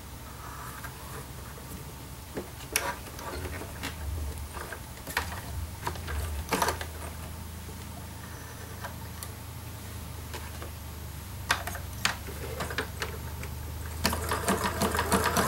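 Scattered light clicks and rustles of a pinned quilt being shifted under the presser foot over a low steady hum. About 14 seconds in, a computerised domestic sewing machine starts stitching at a fast, even rate, sewing a slight zigzag through the appliqué with a darning foot.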